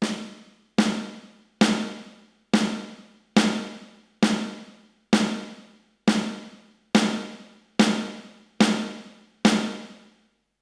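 Roland TD-12 module's snare sound, triggered by twelve single, evenly spaced strokes on a repaired V-Drums mesh pad, a little over one a second. Each stroke rings out before the next. It is a trigger and sensitivity check of the repaired pad.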